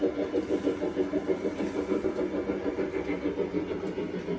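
Battery-powered toy train running along a wooden track: a steady motor hum that pulses evenly about four times a second.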